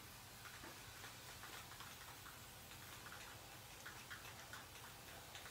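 Near silence: faint background hiss with scattered soft, irregular ticks.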